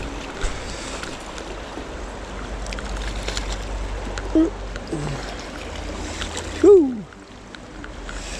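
Steady rush of a shallow river running over stones, with a man's few short vocal sounds and one loud falling exclamation near the end, after which the rush drops off sharply.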